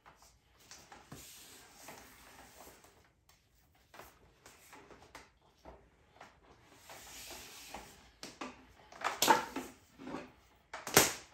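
Pressure-washer hose being wound by hand onto a reel: rubber hose rustling and dragging across a concrete floor with scattered light clicks, and two sharper knocks near the end.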